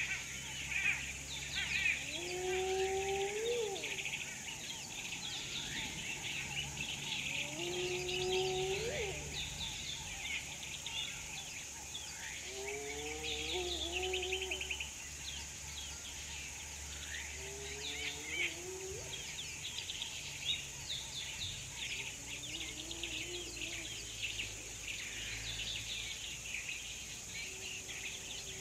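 Many small birds chirping and calling at once, with a lower, repeated call that sounds about every five seconds and grows fainter toward the end. A steady high hiss runs underneath.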